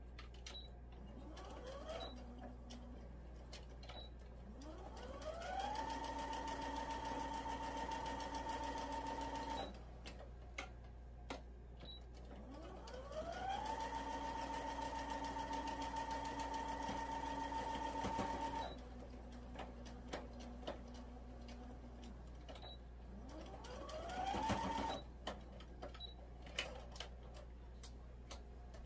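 Electric sewing machine stitching over a seam in four runs, two of them long: each time the motor speeds up with a rising whine, then holds a steady pitch before stopping. Small clicks come between the runs.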